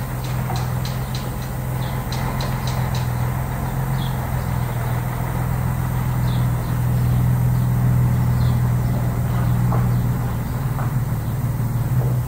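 Scania 113's straight-six diesel engine running at low revs as the truck and trailer reverse slowly, a steady low hum that grows louder about halfway through as it comes closer.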